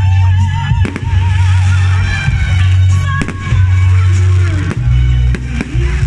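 Fireworks going off over loud music: several sharp bangs and crackles of rockets and bursting shells, over deep held bass notes and a wavering melody.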